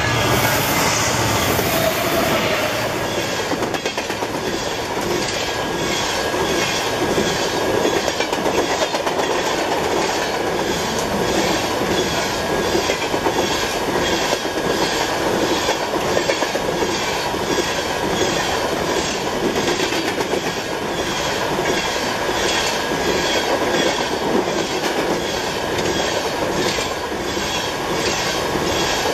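Coal train hopper cars rolling past at speed: a steady rumble of steel wheels on rail with a regular clickety-clack of wheels over rail joints, a little under two clicks a second. A faint steady squealing tone from the wheels runs under it.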